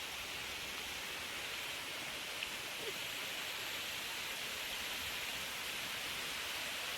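Waterfall rushing steadily: a constant hiss of falling water.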